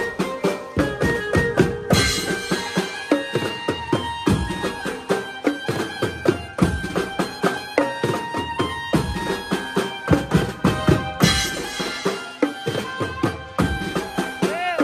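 Maharashtrian banjo party band playing: fast, driving drum and percussion strikes under a sustained melody line. Cymbal crashes come about two seconds in and again near eleven seconds.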